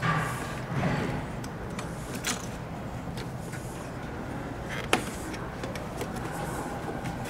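Handling noises as a new bellows is hooked onto a Grammer MSG65 seat frame: rubbing and rustling with a few sharp clicks, one at the start, one a little after two seconds and one about five seconds in, over a steady low hum.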